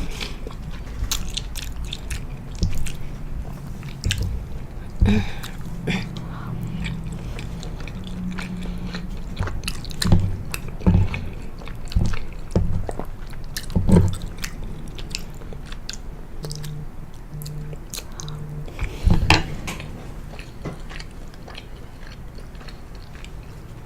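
Close-miked chewing of soft penne pasta in a pesto and hummus sauce: wet mouth clicks and smacks with stronger bites now and then. About two-thirds through, four evenly spaced low buzzes.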